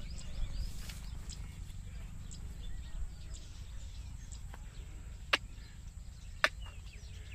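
Outdoor farmyard ambience: scattered faint bird chirps over a steady low rumble, with two sharp clicks about a second apart near the end.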